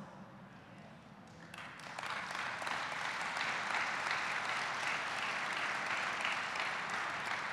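An audience applauding. The clapping starts about a second and a half in, swells and then holds steady.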